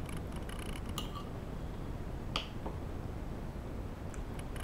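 Mouth sounds of eating: soft chewing and lip-smacking clicks, with a single sharp clink of a metal spoon against a ceramic plate a little past halfway, over a steady low hum.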